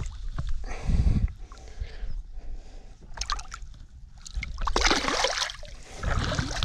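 Lake water splashing and sloshing as a smallmouth bass is held in the water at the side of a boat and released, with the biggest splash about five seconds in as the fish kicks away.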